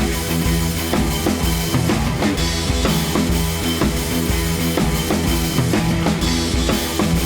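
Background music with a steady rock drum beat.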